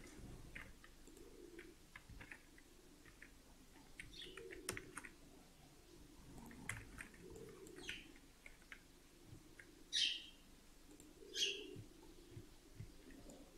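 Faint chirping of a small bird: scattered short, high chirps, with two louder chirps falling in pitch near the end, about a second and a half apart.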